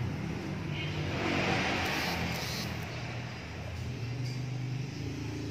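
Truck engine running steadily at idle, a low even hum with a fast pulsing beat.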